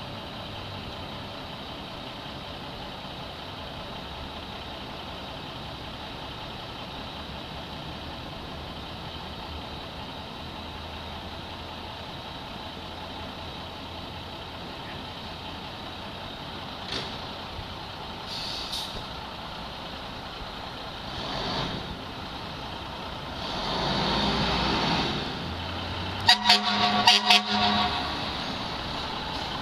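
Fire truck engine running steadily, with several hisses of air brakes partway through. Near the end comes a quick run of loud, short air horn blasts.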